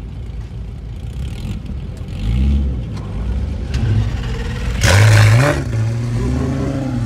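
Sports car engines idling, with a rising rev about two seconds in and a louder rev about five seconds in.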